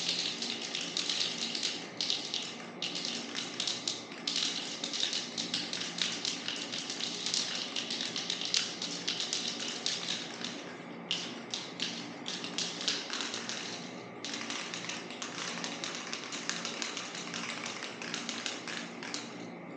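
Aerosol spray-paint can spraying a coat of paint in long hissing passes, with a few brief pauses between them.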